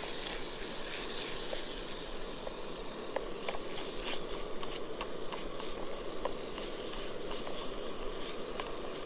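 Venison and diced onion sizzling in a frying pan over a gas-canister camp stove, stirred with a wooden spatula: a steady sizzle with scattered small crackles and scrapes.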